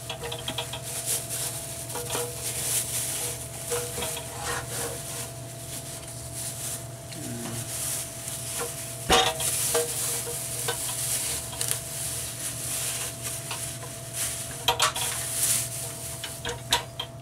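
Crinkling of a thin plastic bag as a sheet-metal single-burner stove is unwrapped by hand, with a few knocks of the stove's metal body against the bench, loudest about nine seconds in.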